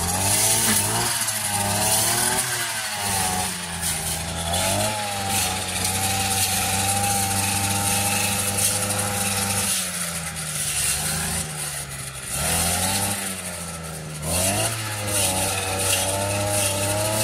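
Small engine of a motorized scythe (tırpan makinesi) running hard as it chops dried hay into straw. Its pitch sags and recovers several times as it takes load from the grass being fed in.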